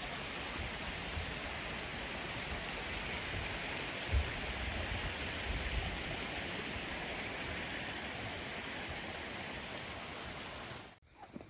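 Steady rush of running water from a mountain stream, with a few low thumps, cutting off suddenly near the end.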